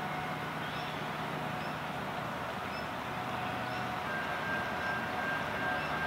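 Diesel freight locomotives approaching in the distance: a steady low engine hum under a wash of noise, with a thin high steady tone joining about four seconds in.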